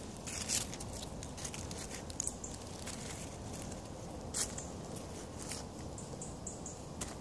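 Dry fallen oak leaves rustling and crackling in short, scattered bursts as hands pick acorns off the forest floor. The clearest crackles come about half a second in and about four and a half seconds in.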